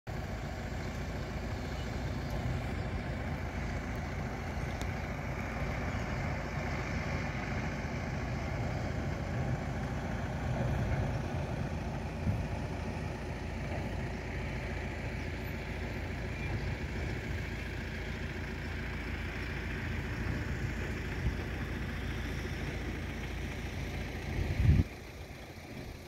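Steady rumble of heavy dump trucks' diesel engines at an earthworks site. Near the end there is a sudden loud bump, and then the sound drops away.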